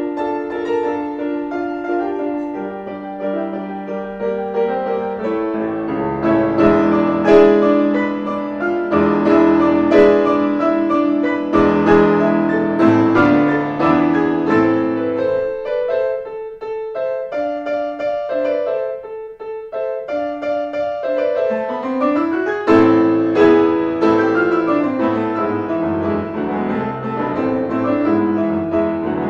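Grand piano played four hands in a duet, a continuous classical piece with dense chords and runs. About two-thirds of the way through the playing thins out and quietens, then a rising run leads back into louder, fuller passages.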